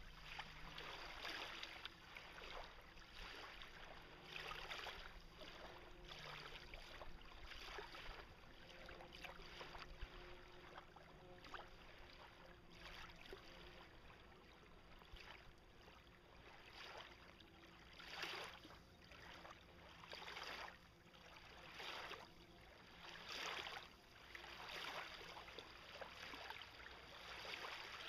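Faint lake water sloshing and splashing around a kayak and floating dock, coming in irregular surges every second or two.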